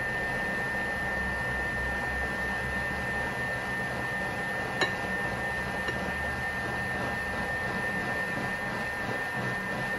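Thermomix TM6 food processor's motor running at a steady low speed, a constant whirring whine with a steady hiss under it. One light click about five seconds in.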